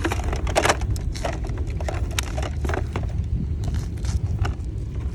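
Curbside trash being rummaged through: scattered clicks, knocks and rustles over a steady low rumble.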